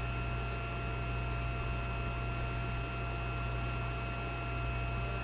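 Steady hum and hiss with a faint high whine, unchanging throughout, with no distinct events.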